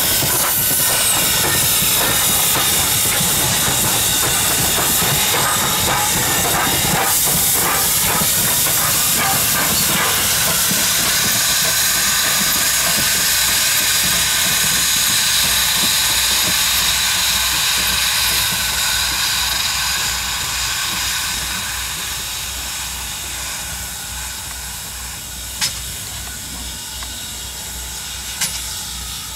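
Steam locomotive hissing steam loudly and steadily, easing off over the last ten seconds. Underneath is a low pulsing about twice a second, and there are two sharp clicks near the end.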